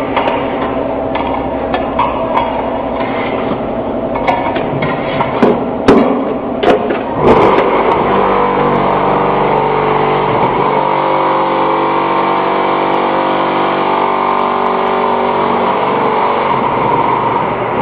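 QT4-30B mobile concrete block machine running: a motor hum with irregular clanks and knocks, loudest around six seconds in. About seven seconds in, a steady many-toned vibrating hum starts, the machine's vibration motor compacting the concrete in the mould, and holds until it eases near the end.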